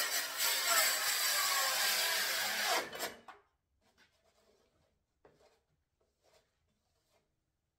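Circular saw cutting a lengthwise slit along 2-inch PVC pipe. About three seconds in the saw is switched off and the blade spins down with a falling whine. After that there are only a few faint clicks and knocks.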